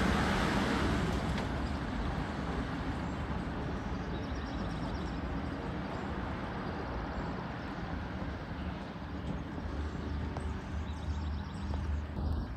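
1965 Ford Mustang's engine accelerating away, fading over the first couple of seconds as the car drives off, then a faint, steady distant running sound.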